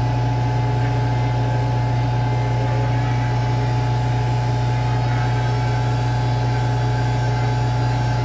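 A steady, unchanging low mechanical hum, like a small electric motor running, with a few faint steady higher tones.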